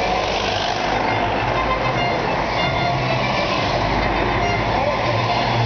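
Cars driving past close by on the road, a steady mix of engine and tyre noise.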